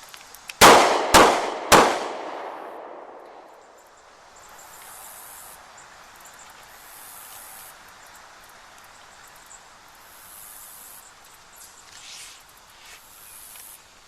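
Three shots from a Walther PPS 9mm pistol fired in quick succession, about half a second apart, each leaving an echo that fades over the next couple of seconds: the failure drill's two body shots and one headshot.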